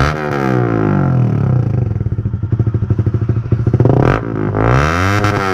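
Motorcycle engine revved through a Leo Vince GP Corsa Shorty exhaust with its silencer insert (dB killer) removed. The first rev falls back to an uneven, pulsing idle, and two more revs come in the last second and a half. It is very loud and noisy.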